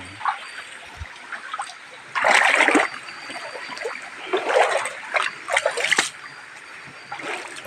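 Water splashing in a shallow stream, with several separate splashes over a steady trickle.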